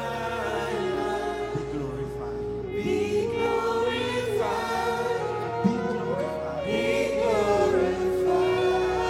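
Gospel worship music with a choir singing long held notes that move from chord to chord.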